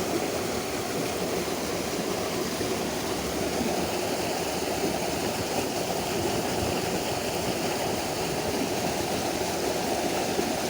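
Steady flowing stream water, an even rushing noise without breaks.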